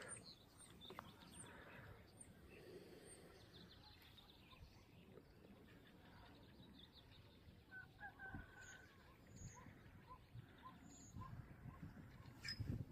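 Near-silent outdoor quiet with faint, scattered bird chirps and short calls, including a short run of repeated notes about two-thirds of the way in. A single soft knock comes near the end.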